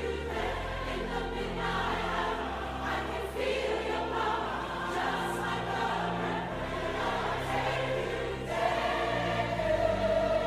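Choral music: a choir singing slow, sustained chords over long-held deep bass notes, swelling a little near the end.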